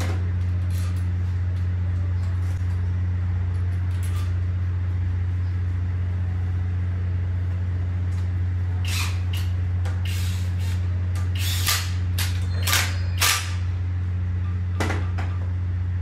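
Metal tools and engine parts clinking and knocking as they are handled on a workshop bench: a quick run of sharp clicks and clinks from about nine seconds in, and one more near the end. A steady low hum runs under them.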